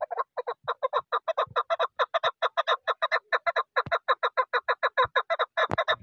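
Chukar partridge calling a fast, unbroken run of short chuck notes, about seven a second.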